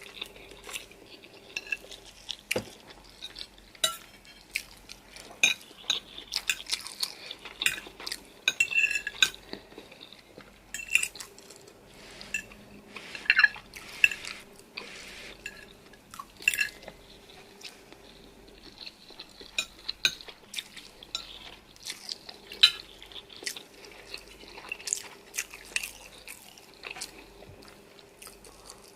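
Cutlery clinking and scraping against dishes during a meal of spicy noodles and chicken: frequent irregular clicks and clinks.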